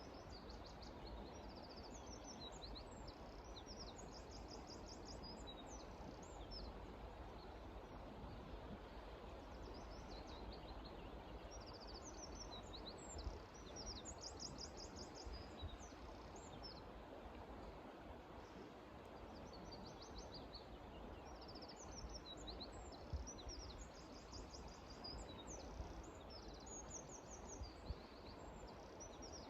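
A songbird singing in repeated phrases of high, rapid trills and chirps, a new phrase every several seconds, over a steady low outdoor rumble.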